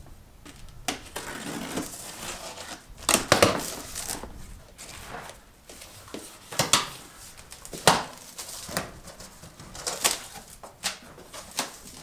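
Cardboard shipping box being cut open with a knife: the blade scraping and slicing through packing tape, then the cardboard flaps pulled open, with irregular scrapes, crinkles and knocks of cardboard.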